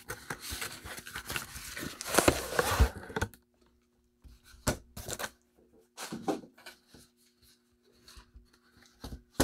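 Cardboard scraping and rustling for about three seconds as a watch box is slid out of its cardboard shipping box. Then a few short soft knocks and taps as the box is handled, with one sharper knock at the very end.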